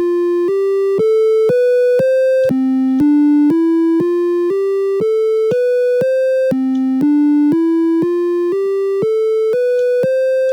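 Micro:bit alarm program sounding: buzzy electronic beeps, each about half a second long, climb one octave of a major scale and start again from the bottom, looping over and over. This is the burglar alarm set off by shaking the board, which keeps playing until button A is pressed.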